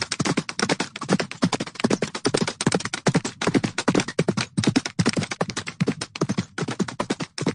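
Horses making a rapid, uneven run of crisp taps and crunches, several a second, with no break.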